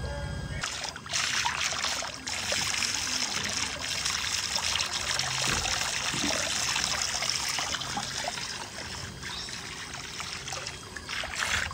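Water running and trickling into a small tiled pool in a steady hiss that starts about half a second in, with small splashes from a baby monkey's hands in the water.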